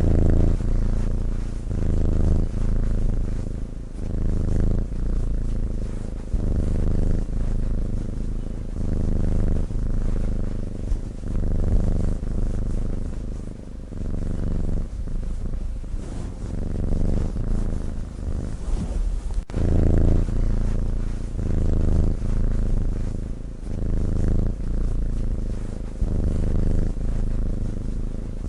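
Sleeping cat purring: a low, rhythmic rumble that swells and fades about once a second with its breaths in and out.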